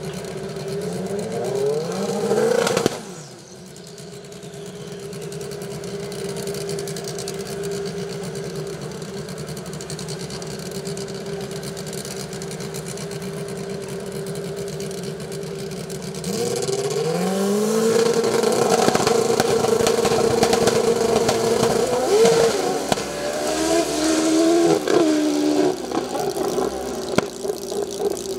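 Drag-racing motorcycle engines at the start line. One revs up and cuts off about three seconds in, then the engines run steadily. About sixteen seconds in they rev up and are held at high revs with brief wavers, then the sound pulls away and falls off near the end as the bikes launch down the track.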